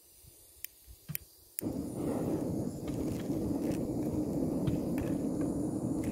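Portable camping gas stove being lit: a few sharp clicks, then the burner catches about a second and a half in and burns with a steady rushing hiss.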